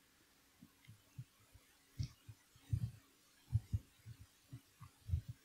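Soft, irregular low thumps from a handheld wireless microphone being held and shifted in the hand, over a quiet room.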